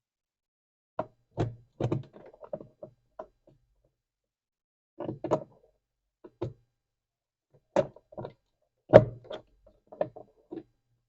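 Irregular knocks and short clattering runs of hard parts and tools being handled and fitted together, in separate clusters with pauses between; the loudest knock comes about nine seconds in.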